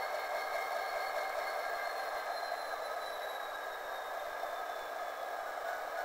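Diesel locomotive engine sound from a Soundtraxx Tsunami decoder in an HO-scale model of an F59PH, played through the model's small speaker as a steady hum. A faint high whine slowly falls in pitch through the middle.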